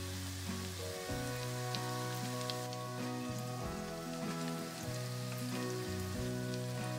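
Food sizzling in a frying pan: a steady hiss with scattered small pops, under background music of held, slowly changing notes.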